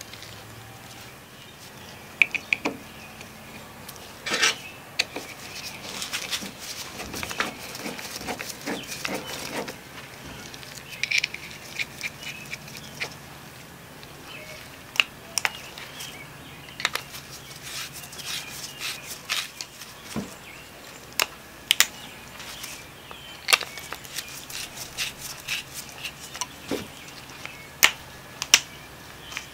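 Small metal parts of an FLP adjustable scooter kickstand handled by gloved hands: scattered sharp clicks and clinks, with stretches of soft rustling in the first half and several louder clicks near the end.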